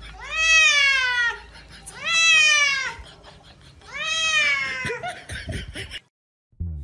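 A wet cat meowing in distress while being bathed: three long meows about a second apart, each falling in pitch.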